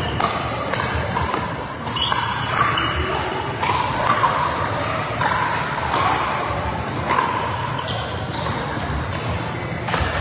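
Pickleball paddles hitting a hollow plastic pickleball in a rally, with ball bounces: sharp pocks about once a second at uneven spacing, each ringing briefly in a large hall.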